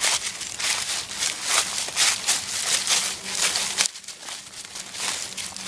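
Footsteps crunching and rustling through deep dry fallen leaves in quick, irregular steps, a little quieter after about four seconds.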